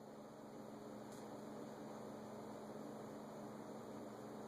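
Faint room tone: a steady low electrical hum under an even hiss.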